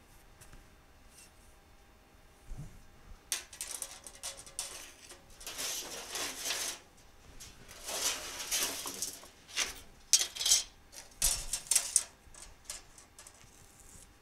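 Sheet steel being slid and shifted across a steel welding table, scraping in bursts of a second or so, with metallic clinks and taps as it is positioned and marked out.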